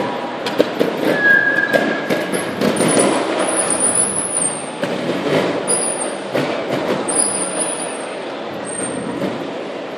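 Trial motorcycle bumping down a stone staircase, with a quick run of knocks in the first couple of seconds as it drops from step to step, heard in a reverberant hall over crowd noise. A few short high squeals follow over the next several seconds.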